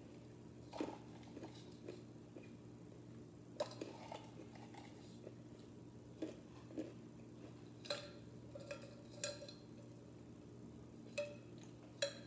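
Handling of a metal tin of Blue Diamond almonds: a dozen or so scattered clicks, taps and light clinks, a few with a brief metallic ring, over a steady low hum.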